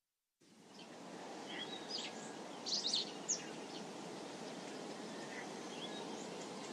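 Outdoor nature ambience fading in from silence: a steady low background rush with scattered short bird chirps and calls, a brief cluster of louder chirps near the middle.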